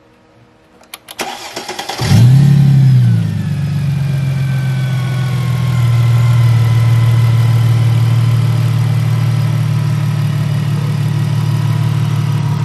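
Mercedes SLK32 AMG's supercharged 3.2-litre V6 is cranked by the starter for about a second. About two seconds in it catches with a brief rev flare, then settles into a steady idle. This is its first start after being fitted with a smaller 65 mm supercharger pulley with the pulley clutch deleted.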